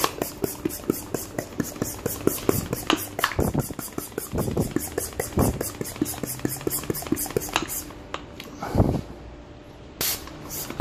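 Gloria FM10 hand-pump foam sprayer being pumped up to pressure: a fast, even run of clicking pump strokes that stops about eight seconds in, with a single thump about nine seconds in.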